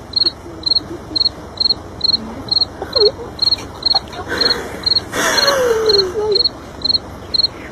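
An insect chirping steadily at a high pitch, about two chirps a second. Around five seconds in, a brief rustling hiss and a short falling call join it.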